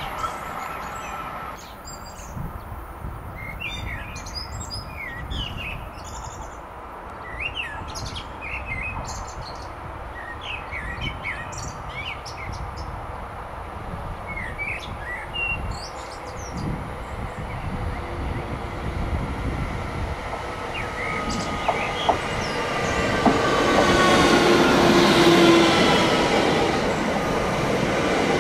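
Birds chirping over the low rumble of rail traffic for the first half. From about eighteen seconds in, an electric train comes closer and gets steadily louder, with rising and falling whining tones from its drive, loudest near the end.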